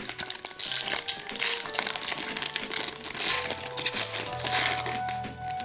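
Plastic wrapper of a pack of hockey trading cards crinkling as it is torn open and the cards are pulled out, over background music.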